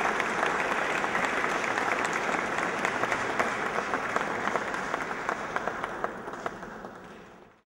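Audience applause: many people clapping together, steady at first, then fading away over the last second or two.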